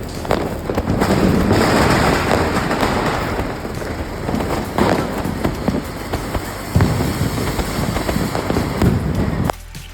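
Diwali fireworks and firecrackers going off: a dense crackle of pops with several louder bangs. The sound cuts off sharply just before the end.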